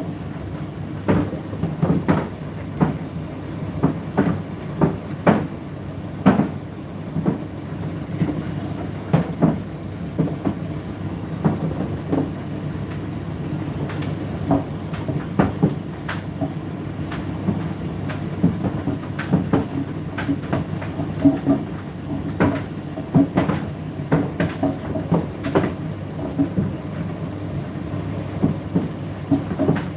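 Indesit IDC8T3 8 kg condenser tumble dryer running: a steady hum from the motor and turning drum, with irregular knocks as the load tumbles and drops inside the drum.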